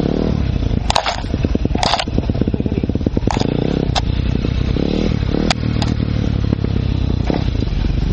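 Enduro motorcycle engine running hard on a trail, its note rising and falling with the throttle, punctuated by about seven sharp knocks and clatters at irregular intervals.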